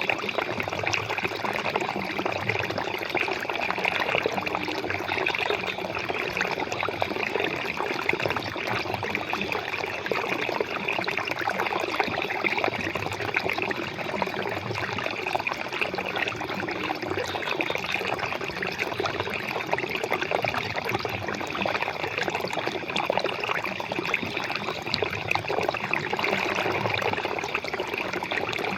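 Flowing water running steadily, a continuous trickling and splashing with no pauses or changes.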